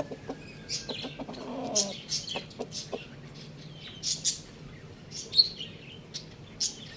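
Domestic chickens and small birds calling: scattered short, high chirps and a few brief clucks over a faint steady low hum.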